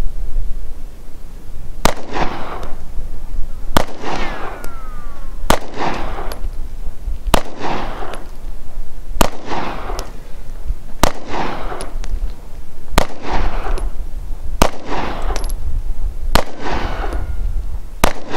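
Springfield XD(M) 9mm pistol with a 3.8-inch barrel firing ten single shots at a steady pace, about one every two seconds, each shot followed by a short echo.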